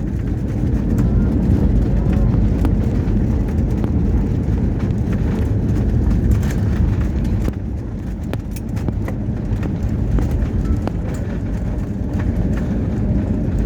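Steady low rumble of an airliner rolling on the ground after landing, heard from inside the cabin, with scattered small clicks and knocks.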